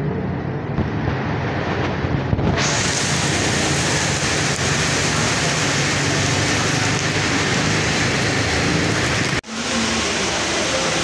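Rain falling steadily: a loud, even hiss.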